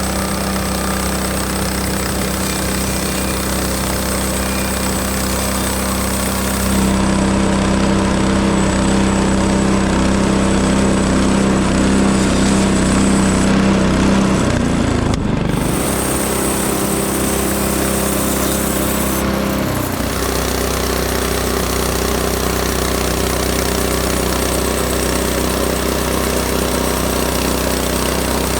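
Small gasoline engine of a Frontier OS18 portable bandsaw mill running steadily. Its sound gets louder about a quarter of the way in, then eases back about halfway through and shifts again a little later, as the load on the mill changes.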